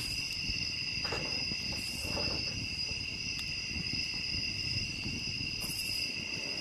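Night crickets trilling in one steady, unbroken high tone, over a low crackle from a campfire.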